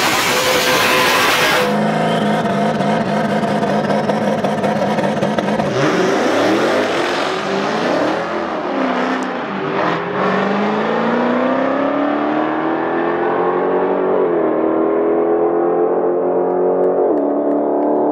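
Camaro F-body drag car's stroker engine: a burnout with tyres screeching over the engine for the first two seconds, then the engine held at steady revs on the line. About six seconds in it launches hard, revs climbing and dropping through several gear changes as the car pulls away down the strip and fades.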